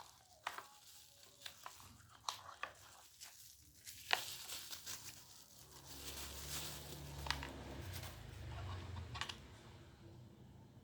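Packaging being handled and opened: crinkling and tearing with scattered sharp clicks and knocks, the loudest about four seconds in. A low rumble runs under the second half.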